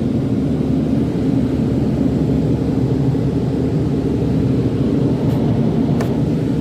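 Steady, loud, low engine rumble running without change, with a single sharp click about six seconds in.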